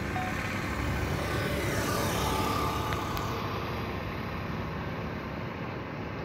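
Motor scooter passing close by on the road, its engine and tyre noise building to a peak about two seconds in and then fading as it rides away.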